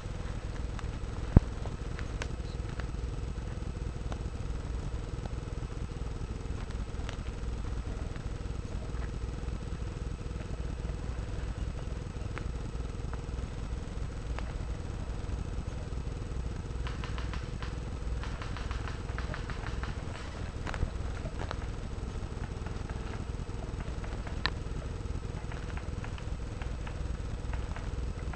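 Steady low rumble of movement and handling noise on a rifle-mounted camera carried through the woods, with a sharp click about a second and a half in, a stretch of rustling through brush near two-thirds of the way, and a couple of lighter clicks later.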